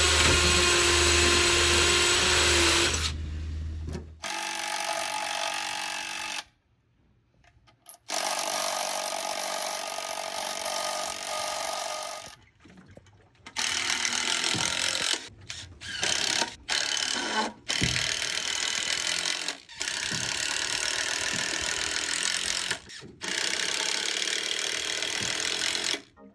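Cordless drill running in repeated bursts of a few seconds with short stops between, drilling into a pressure-treated wooden board set against a concrete seawall.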